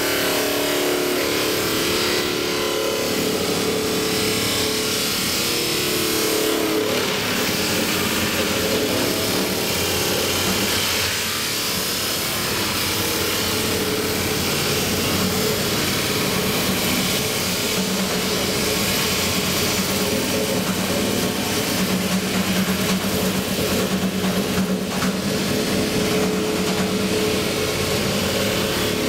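Abrasive wheel of a Fox 2C swing frame cut-off machine grinding through a heavy metal casting: a continuous harsh grinding hiss with a steady tone underneath.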